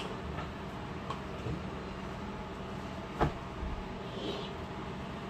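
Small objects set down on a polished stone countertop: a sharp knock at the start and another a little past three seconds in, with lighter taps between, over a steady background hum.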